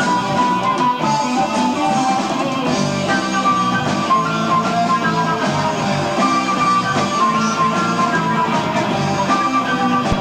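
Progressive rock band playing an instrumental passage live, guitar to the fore over the rest of the band, heard through an amateur tape recording.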